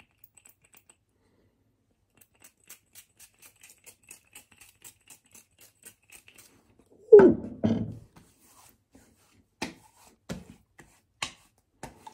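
Hands patting and slapping aftershave onto a freshly shaved face: a run of light pats at about four a second, a louder, lower sound about seven seconds in, then a few sharper slaps about a second apart.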